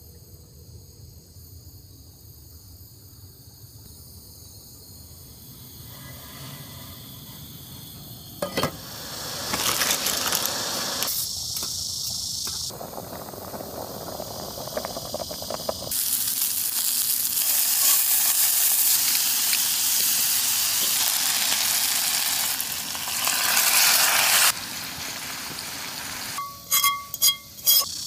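Cooking on a portable gas canister stove: a steady hiss of sizzling and bubbling from the pot, building up from about a third of the way in and cutting off suddenly near the end. A few short ringing ticks follow.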